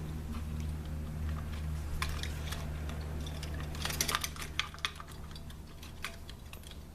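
Light clicks and taps of a CPU heatsink being handled and set down onto the processor's mounting brackets, bunched about two seconds in and again around the middle, over a steady low hum.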